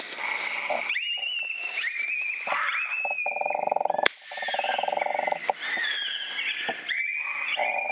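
Coyotes howling and yipping: high, wavering calls that slide up and down in pitch, with a lower buzzing growl in the middle. A single sharp crack comes about four seconds in.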